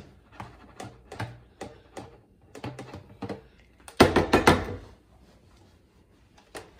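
Light knocks and clunks of a blender jar being handled while the last of the slush is poured out into a cup, with one louder, noisy burst lasting under a second about four seconds in.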